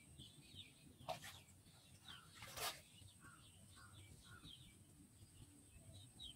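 Small birds chirping faintly and intermittently, with two short water splashes about a second and two and a half seconds in, the second one louder and longer.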